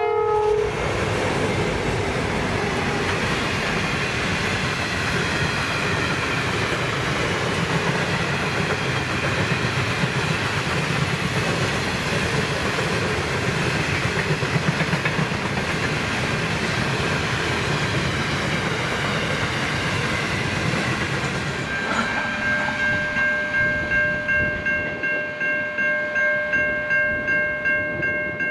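Pacific National freight train passing close by: the tail end of a diesel locomotive horn blast as the X-class and 81-class diesel-electric locomotives go by, then the steady rumble and clatter of hopper wagons rolling past. Near the end a steady high ringing, pulsing about one and a half times a second, takes over.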